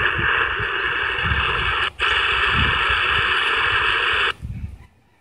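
Static hiss from a Grundig G2 Reporter shortwave radio's speaker on an empty channel around 16.25 MHz, with irregular low thumps underneath. The hiss drops out for a moment about two seconds in as the frequency is stepped, then cuts off suddenly just after four seconds, leaving near silence.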